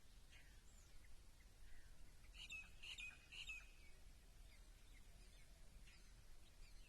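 Faint birds chirping, with a brighter cluster of several quick chirps about two and a half seconds in, over a low steady background rumble.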